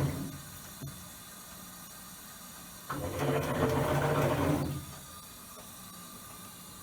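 Hitachi Beat Wash BW-8KV washing machine running, with a steady low hum and, a few seconds in, a louder whirring, grinding burst from the drive motor lasting nearly two seconds. It is the abnormal noise that the owner traces to a worn drive assembly (クドウブクミ).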